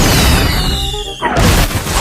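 Loud edited-in music and sound effects: a noisy blast with a falling whistle over it, which cuts off suddenly about a second in, followed at once by another loud burst.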